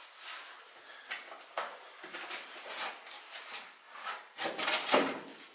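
A person clambering over large rough blocks in a narrow doorway: irregular scraping and rubbing of clothes and shoes on stone, with shuffling and small knocks. The loudest scrapes come near the end.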